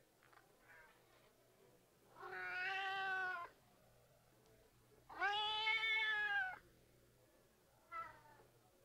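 Cat meowing: two long drawn-out meows, about two seconds in and about five seconds in, then a short one near the end.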